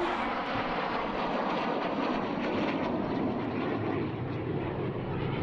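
Jet engines of a pair of MiG-21 fighters flying past: a steady rushing noise whose high hiss slowly dulls as they pass.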